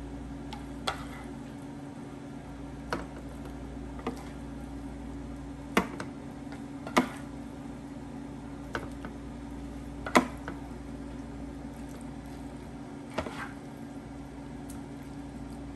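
Light taps and clinks of a cooking utensil against a pan, scattered every second or two, over a steady low hum.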